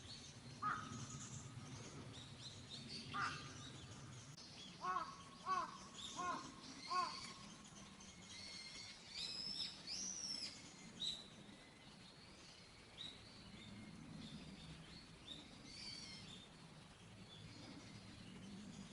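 A crow cawing: single caws about a second and three seconds in, then a run of four caws between about five and seven seconds. Small birds chirp and twitter in high, thin calls after that.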